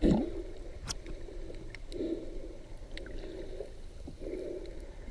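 Muffled underwater water movement heard through a submerged camera, swelling and easing every second or two, with faint scattered clicks. A single thump comes right at the start.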